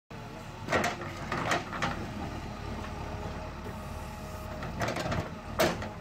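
JCB 3DX backhoe loader's diesel engine running steadily as the backhoe works, with sharp metallic knocks and clanks a few times, the loudest near the end.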